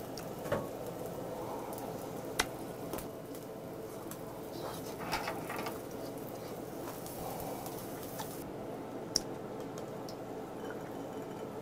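Quiet eating sounds: chewing, with a few small clicks and taps, over a faint steady hiss from the tabletop grill. Near the end, tequila is poured from the bottle into a glass of ice.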